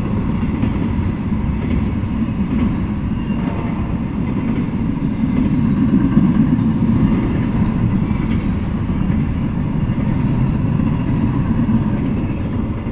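Double-stack intermodal freight train rolling past, a steady heavy rumble of wheels on rail that begins to fade right at the end as the last cars clear.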